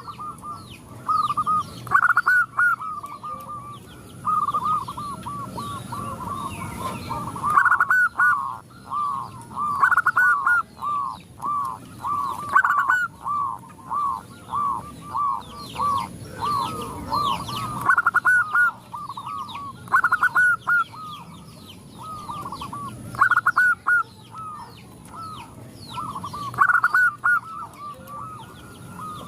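Zebra doves (perkutut) calling together: several birds give rapid series of short, rippling coos, one run after another with brief pauses. This is a chorus set off by a calling female, with the males answering.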